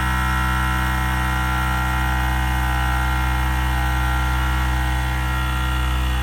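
Bauer 20V cordless brushless air compressor running steadily, its motor and pump building pressure in the 1.6-gallon tank.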